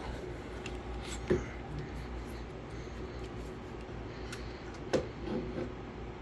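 Handling noises as a cord is worked into an electric scooter's frame: light rubbing and small rattles, with two sharp clicks, one about a second in and one near five seconds.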